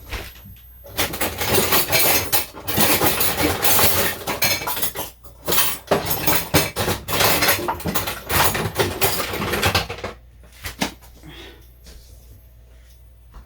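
Kitchen utensils and dishes clattering and knocking together as someone rummages through them, a dense, irregular clatter lasting about nine seconds, then a few separate knocks near the end.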